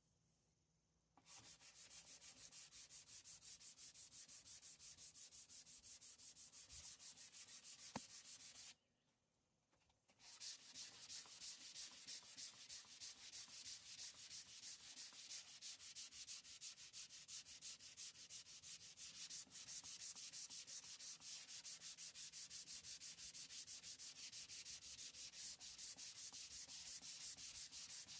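Fine-grit sandpaper rubbed back and forth over a fiberglass boat's oxidized gelcoat, in quick even strokes of several a second. It starts about a second in, pauses briefly about nine seconds in, then carries on.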